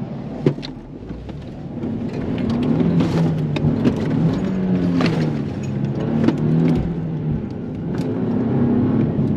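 Nissan 370Z's 3.7-litre V6 running through a Tomei aftermarket exhaust, its revs rising and falling. The exhaust note grows louder about two seconds in, with a few short sharp clicks over it.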